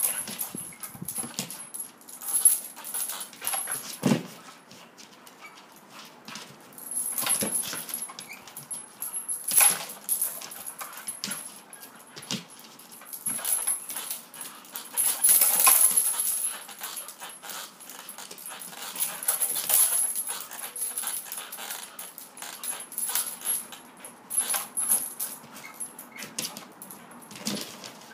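A dog tugging and leaping at a rope toy hung from a tree, making dog noises along with scuffs and clicks from its paws and the rope, in irregular bursts with louder flurries of activity several times.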